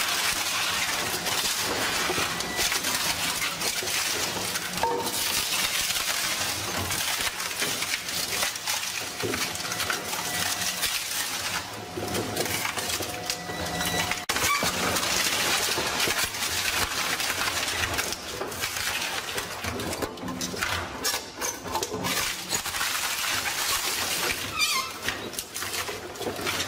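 Wooden planks being crushed and torn apart in a shredder with crankshaft rotors: continuous dense cracking and splintering of wood, with brief lulls between pieces.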